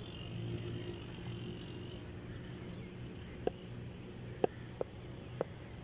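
Open-air ambience with a low steady hum. In the second half there are four short, sharp knocks at uneven spacing.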